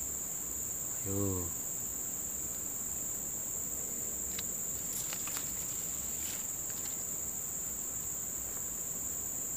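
A steady, high-pitched chorus of insects calling without a break, with a few faint clicks about halfway through.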